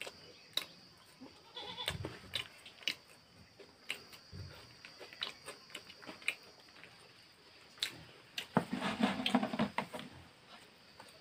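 Crunchy chewing of puffed rice (muri) mixed with ghugni and fried chop, heard as many short, irregular crunching clicks. About eight and a half seconds in, a short pitched call of about a second stands out over denser crunching.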